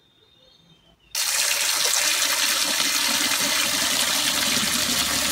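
A stream of water pouring into a terracotta bowl as green chillies are rinsed under it, starting suddenly about a second in and running steadily after that.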